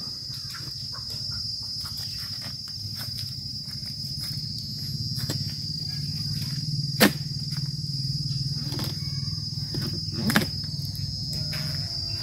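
Steady high-pitched insect chorus, with sharp knocks of a dodos chisel blade jabbed into an oil palm's frond bases, the loudest about seven seconds in and another about ten seconds in.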